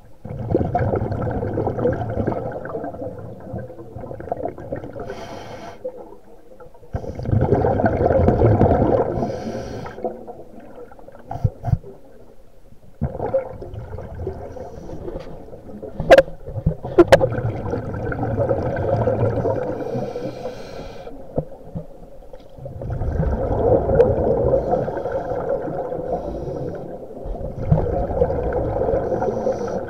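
Scuba breathing heard underwater: loud bubbling bursts of exhaled air from a regulator every few seconds, with quieter stretches between. Two sharp clicks about halfway through.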